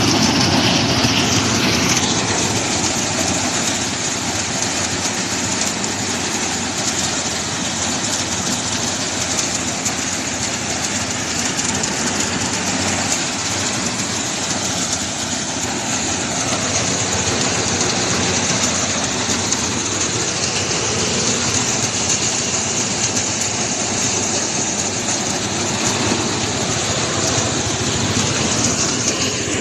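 Engine-driven rice thresher running steadily.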